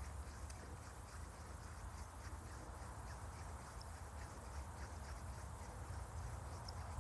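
Outdoor ambience: insects chirping faintly with small repeated high ticks over a steady low rumble.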